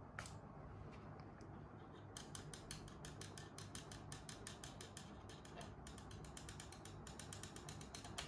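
Faint, rapid run of small mechanical clicks, about ten a second, starting about two seconds in with a short break near the middle, over a steady low hum.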